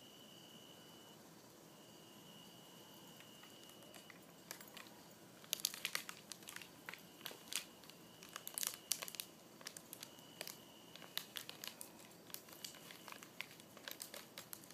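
A large dog gnawing on a tree root: irregular sharp cracks and crunches, starting about four or five seconds in and carrying on in uneven clusters.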